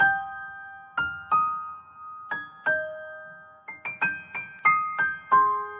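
Background music: a slow, gentle piano melody, single notes and chords struck about once or twice a second and left to ring.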